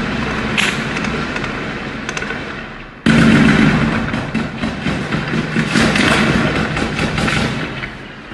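Gunfire in rapid runs of crackling shots. It gets sharply louder about three seconds in, with the shots coming thick and fast until it fades near the end.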